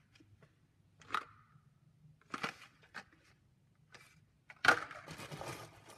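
A small clear plastic jewelry box being handled: a few scattered sharp plastic clicks, the loudest about three-quarters of the way through, followed by about a second of crackling.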